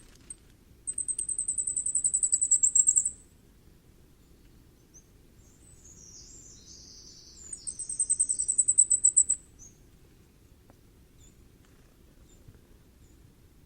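Common firecrest singing twice: each song is a quick run of very high, thin repeated notes that grows louder and ends in a short flourish. A fainter, rougher chirring is heard between the two songs.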